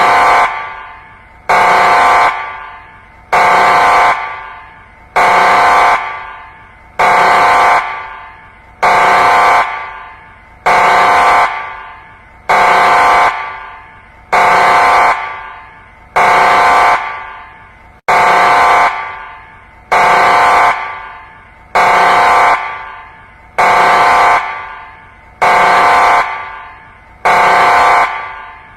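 Emergency alert alarm tone: a buzzy, horn-like blast repeated about every 1.8 seconds, each blast dying away in a long echo before the next.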